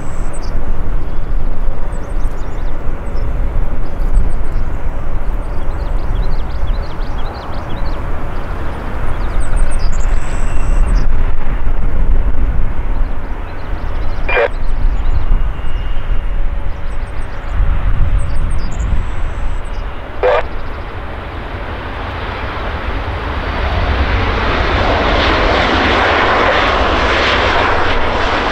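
Airliner engines with a steady low rumble, the engine noise growing louder over the last several seconds as the aircraft comes closer on landing. Two sharp clicks sound midway through.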